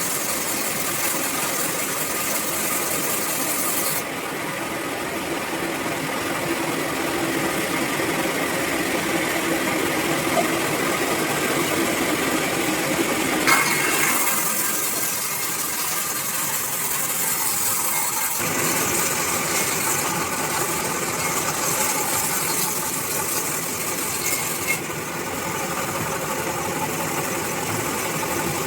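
Band sawmill running as it saws a coconut log, a steady mechanical rattling noise. Its tone shifts abruptly a few times.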